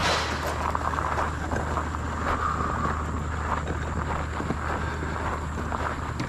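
A single Glock pistol shot right at the start, then steady wind rushing over the microphone with a constant low hum.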